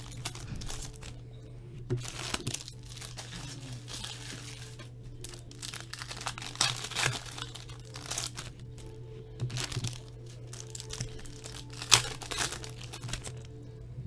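Foil trading-card pack wrappers crinkling and tearing in irregular bursts as packs are ripped open and handled, over quiet background music.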